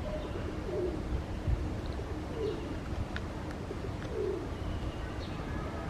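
Birds calling in the open: low falling calls about every two seconds, with faint short high chirps in between and a single click about a second and a half in.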